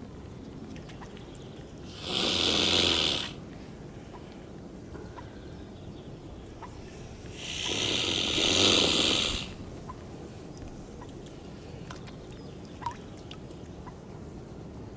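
Male mute swan hissing twice, two loud breathy hisses, the second longer, about five seconds apart. It hisses with its wings raised in the busking display: a threat call from a territorial male defending its nest.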